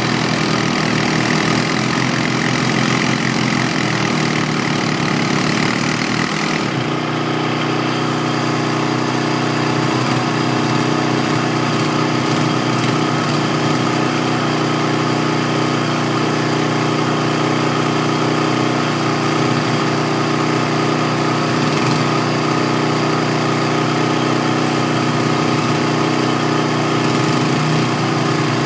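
ATV (four-wheeler) engine running steadily as the quad works its way through a deep mud hole, the engine note holding fairly even throughout. A little under seven seconds in the sound turns duller, losing some of its hiss.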